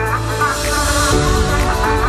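Background music: an electronic backing track with a steady bass line, sustained notes and a bright swelling wash in the middle.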